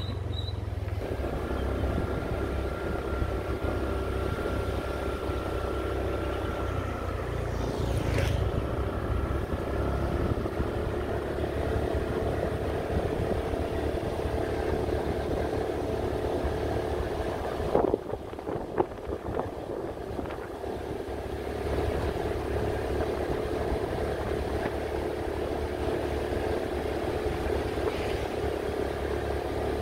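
A motorbike engine running steadily while riding down a steep, winding hill road. The level dips briefly, with a few sharp knocks, about 18 seconds in.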